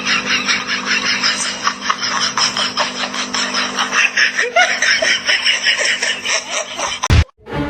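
A person laughing hard in a long, fast run of short bursts, with a steady hum behind it. The sound cuts off abruptly near the end and is followed by a loud low thump.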